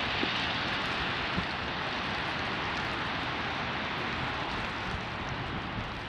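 Steady outdoor city street ambience in a snowstorm: an even hiss of traffic on wet streets, with a couple of faint ticks.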